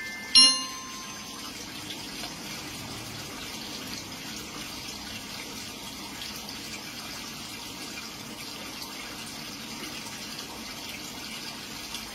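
A single chime-like struck note rings out about half a second in and fades, then a steady rushing bubble-and-water noise from the aquarium's aeration.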